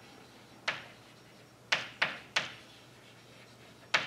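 Chalk tapping against a blackboard while writing: five short, sharp knocks, three of them close together in the middle and one near the end.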